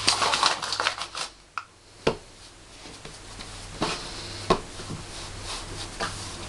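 Hands working pizza dough on a floured table: a quick flurry of rubbing and slapping in the first second or so, then a few separate pats and knocks as the dough ball is rounded.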